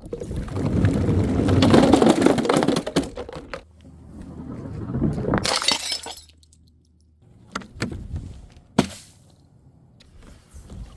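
Glass bottles breaking: a long crash of shattering, tinkling glass over the first few seconds, a second crash around five to six seconds in, then several single sharp glass knocks and clinks.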